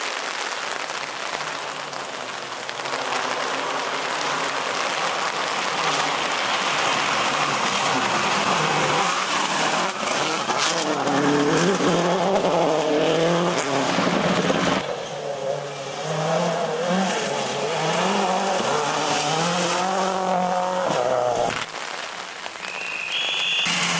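Rally car at speed on a gravel stage: the engine revs up hard and drops back again and again as it shifts through the gears, over a steady rush of tyre and gravel noise.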